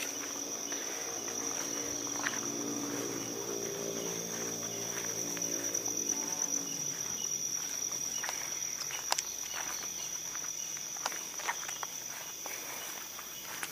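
Night insects, crickets, trilling steadily in one continuous high tone, with scattered short snaps and steps in the undergrowth. A low hum of several steady tones runs underneath for the first half and fades out about seven seconds in.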